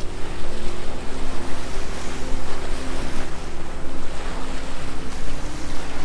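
Surf washing onto a beach, with wind buffeting the microphone and a low humming drone underneath.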